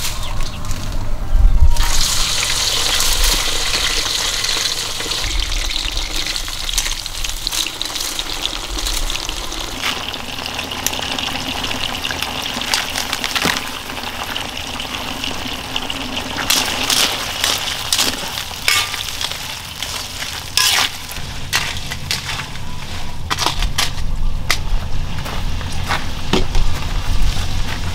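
Water beetles frying in hot oil in a wok: a steady sizzle with crackles that sets in about two seconds in, as the beetles go into the oil.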